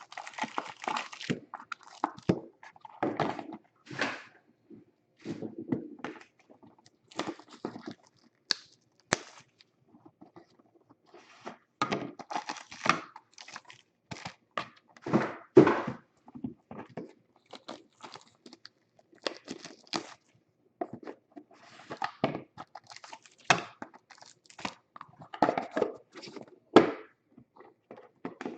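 Sealed boxes of trading cards being opened by hand: plastic wrap tearing and crinkling, with cardboard rustling and light knocks as boxes and packs are handled.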